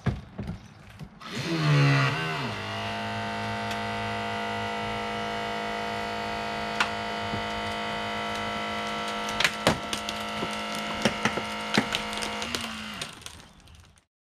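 Powered extrication tool running: its motor drops in pitch about two seconds in and then holds a steady tone, with sharp cracks and snaps of breaking material scattered through the second half. The sound fades out near the end.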